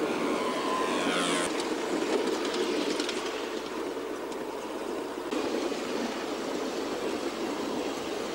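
Miniature ride-on railway train running along its track, heard from aboard: a steady rumble of wheels on rails. A brief high-pitched sweep sounds about a second in.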